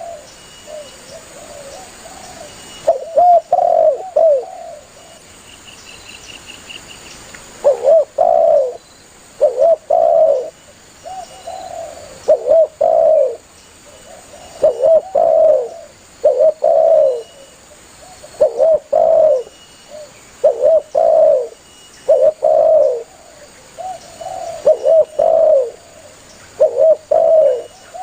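Spotted dove (tekukur) cooing: repeated low, hollow coo phrases, with a pause of a couple of seconds about five seconds in before the phrases resume steadily.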